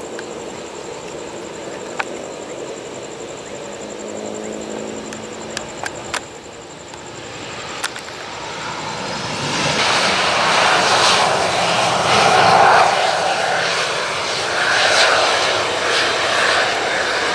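Boeing 737-300 jet engines (CFM56-3 turbofans) during the landing rollout. A fairly quiet hum with a few sharp clicks gives way about halfway through to a broad engine roar that swells, is loudest a few seconds later and stays loud.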